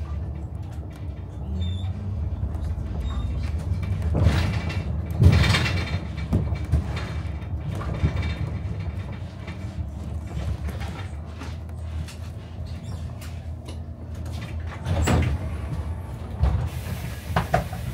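City bus running, heard from inside: a steady low engine hum, with a few knocks and rattles about four to five seconds in and again about fifteen seconds in, and a brief hiss near the end.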